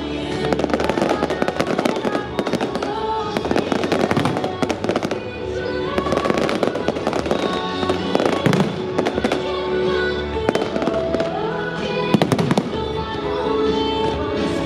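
Fireworks bursting and crackling over loud show music, with a cluster of sharper bangs about twelve seconds in.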